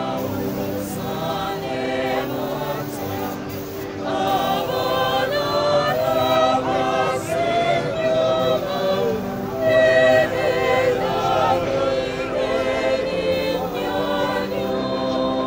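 Background music with voices singing over sustained chords.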